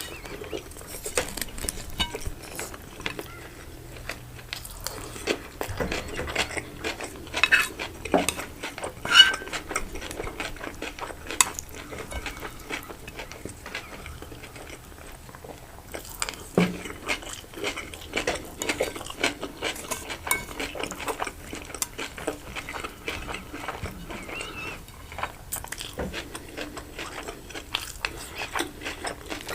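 Close-miked eating of chicken stuffed with rice: cutlery clinking and scraping on a plate in many short clicks, a few ringing briefly, mixed with biting and chewing.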